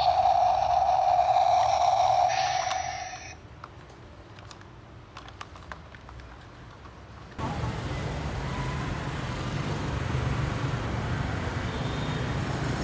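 Toy garbage truck's electronic sound effect, a steady buzzing tone, which cuts off about three seconds in, followed by a few small clicks of plastic being handled. From about halfway, street traffic with a garbage compactor truck's diesel engine running, a steady low rumble.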